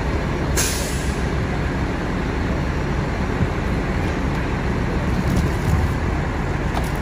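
Steady low diesel rumble of a fire engine running at the scene, with a short sharp hiss of air about half a second in.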